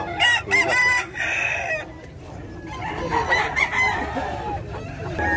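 Gamecocks crowing, with short calls in the first second and one long, drawn-out crow from about three seconds in.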